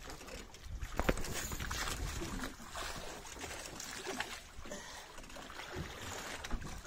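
Sea water sloshing and lapping against a small outrigger boat, with a low rumble throughout and one sharp knock about a second in.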